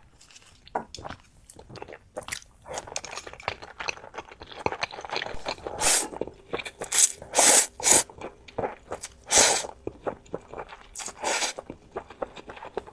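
A person chewing and biting food, with irregular crunchy bites, several of them loud.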